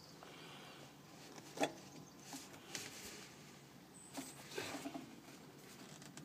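Scattered light knocks, taps and rustles of PVC pipe and fittings being handled and pushed together, the sharpest knock about one and a half seconds in.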